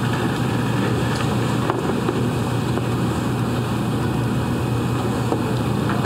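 Steady room noise: a constant low hum under an even hiss, with no clear events.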